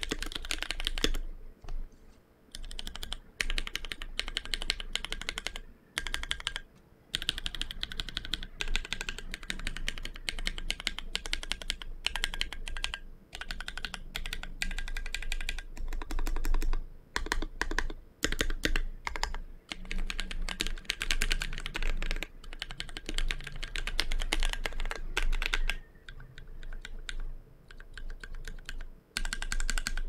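Typing on a JKDK Shark60 mechanical keyboard fitted with TTC Gold Pink 37g linear switches and GMK Merlin keycaps: quick runs of key presses, with a pause about a second in and another near the end.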